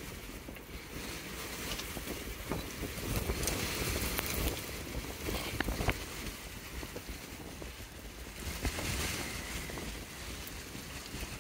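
Gusty wind buffeting the microphone in the strong winds around a wedge tornado, a rough, fluctuating rumble with a few faint clicks scattered through it.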